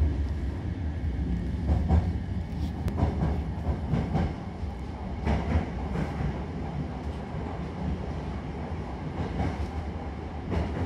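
Hankyu commuter train heard from inside the car: a steady low rumble of wheels and running gear, with scattered short clicks from the rails, as the train runs in alongside the station platform.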